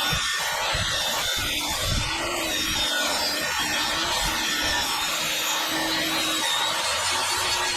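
Saw ripping a wooden board lengthwise, cutting steadily without a break.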